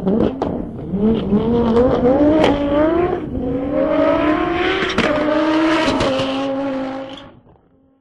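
Rally car engine accelerating under load. Its note climbs, then drops back about three seconds in and again near five seconds, like gear changes. Sharp clicks or knocks are heard, and the sound fades out near the end.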